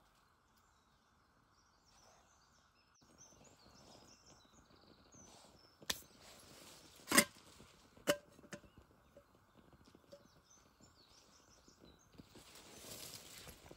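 Four sharp knocks between about six and nine seconds in, the second by far the loudest, over a faint outdoor background.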